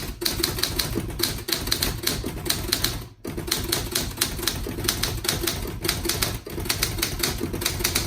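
Olympia SG-1 manual desktop typewriter being typed on: a fast, continuous run of key strikes, several a second, with a brief pause about three seconds in.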